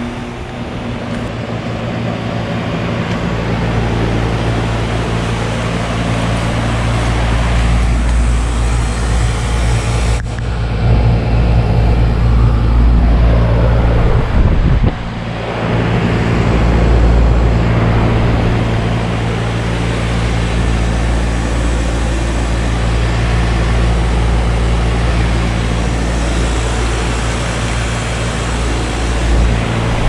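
Heat pump outdoor units running in heat mode on a freezing morning: a 2010 Whirlpool for about the first second, then a 2020 Goodman GSZ14. Steady compressor hum under the rush of the condenser fan.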